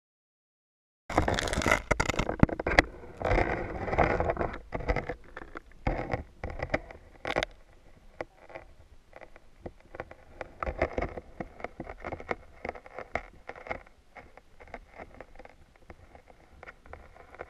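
Muffled knocks, clicks and scraping picked up by a camera submerged under the ice, as it and the fishing lines bump about in the hole. The knocking is busiest in the first several seconds and thins out to scattered faint ticks.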